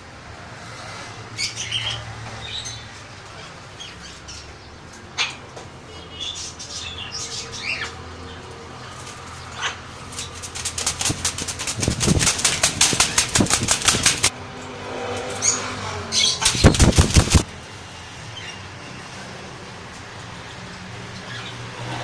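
Blue-and-gold macaw flapping its wings while gripping its perch: a long run of rapid wingbeats past the middle, then a shorter second burst a few seconds later.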